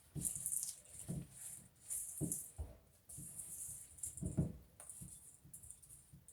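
Spoon stirring a stiff mix of peanut butter, powdered sugar and granola in a bowl: irregular scraping, rustling strokes with a few soft knocks against the bowl.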